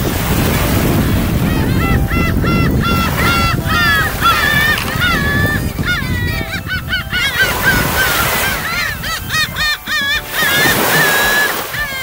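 A flock of gulls calling over and over in strings of short, rising-and-falling calls, with small waves washing onto the beach underneath, the wash swelling and easing.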